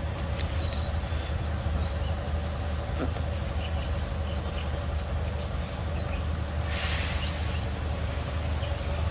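Steady outdoor ambience: a constant low rumble with insects droning in a steady high buzz over it, and a brief hiss about seven seconds in.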